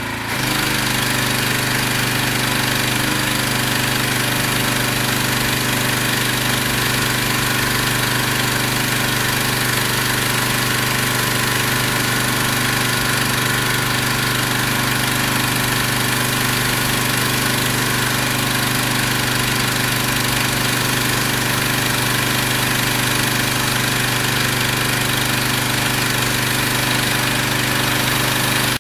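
Pressure washer running steadily under load, a constant machine hum beneath a loud hiss of high-pressure water spraying from a telescopic lance. The sound steps up just at the start as the spraying begins.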